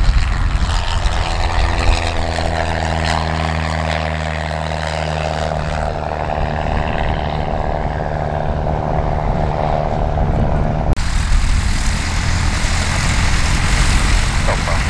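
Propeller-driven light aircraft's piston engine running at a steady pitch. About eleven seconds in the sound changes abruptly to an even, rougher engine noise without the clear tone.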